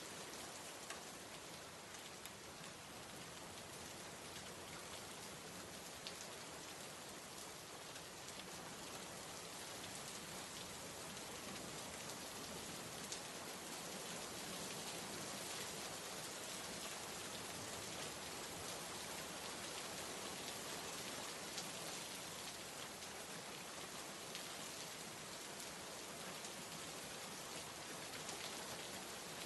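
Steady rain falling, a soft even patter with the odd louder drop.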